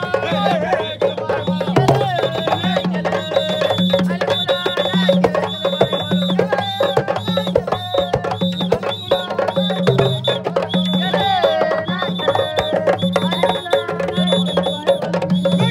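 Several hand drums played with sticks and bare hands in a fast, dense rhythm, with voices singing over them.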